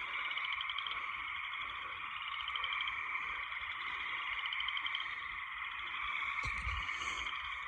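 Steady night chorus of calling frogs and insects, with a pulsing trill that comes back about every two seconds. A brief knock near the end.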